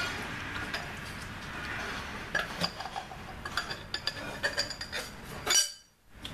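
Light metal clinks and taps from parts being handled at a tractor engine's oil filter housing during an oil change. They come in a quick, irregular run from about two seconds in, end in a louder clank near the end, and then the sound cuts out abruptly.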